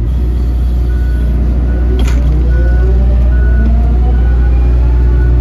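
Wheeled excavator's diesel engine running steadily under load, with a whine that rises slowly in pitch as the machine picks up speed. Its reversing alarm beeps repeatedly, about once every half second or so, and there is a single click about two seconds in.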